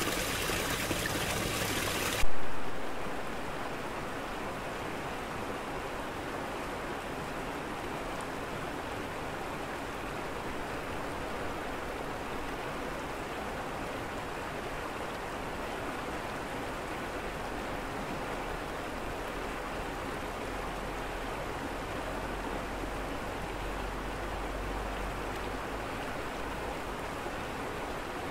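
Arkansas River water running over a rocky bed, a steady rushing stream sound. About two seconds in a sudden loud thump dies away over about a second, and the flow sounds softer after it.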